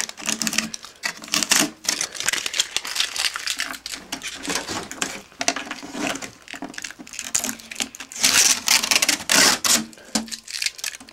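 Metal foil tape being scraped and peeled off a monitor's sheet-metal shield with a plastic card: a dense, irregular crackling and crinkling, loudest about eight to ten seconds in.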